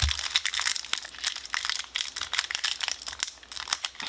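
Foil Pokémon booster pack wrapper crinkling and crackling in the hands with quick, irregular snaps as someone struggles to tear it open by hand.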